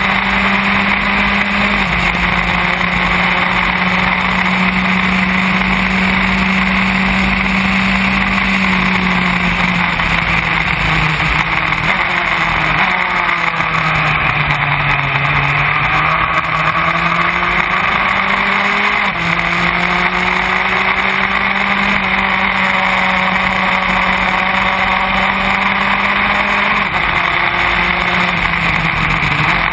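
Formula Enterprise open-wheel race car's engine running at speed, heard onboard from the cockpit over a steady rush of wind noise. Its pitch holds steady, drops through the middle and climbs back again.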